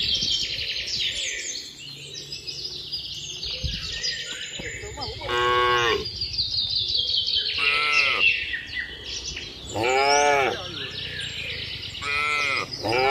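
Cattle mooing: a short call every two to three seconds from about five seconds in, each rising then falling in pitch. Birds chirp steadily throughout.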